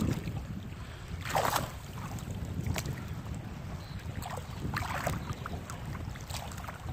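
Wind buffeting the microphone in a low rumble, with water splashing briefly, once about a second and a half in and again about five seconds in.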